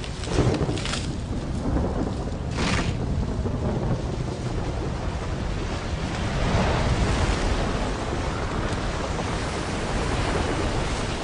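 Heavy rain with rumbling thunder: a steady rushing noise with a few sharp cracks near the start and a louder swell about two-thirds of the way through.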